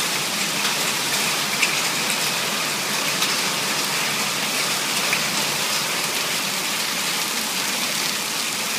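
Heavy rain mixed with hail pelting down on a paved patio and garden: a steady hiss with scattered small ticks of hailstones striking.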